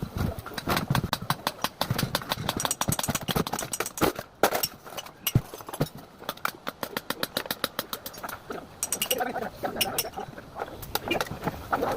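Rapid, irregular metal knocks and clattering, several strikes a second, from a scrapped refrigerator being broken apart with hand tools.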